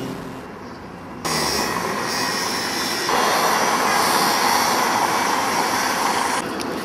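Town street noise: a steady rush of traffic. It gets louder in sudden steps about a second in and again about three seconds in, then drops back near the end.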